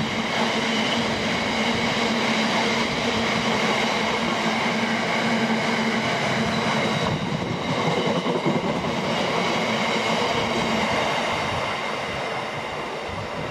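Container wagons of a fast freight train rolling past on the rails, a dense steady clatter and rumble of wheels with a ringing hum; it eases off near the end as the tail of the train goes by.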